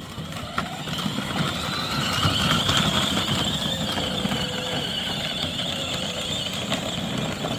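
24V kids' electric ride-on car's drive motors and gearboxes whining as it drives, with the tyres rolling underneath. A steady high whine that grows louder over the first couple of seconds and then holds.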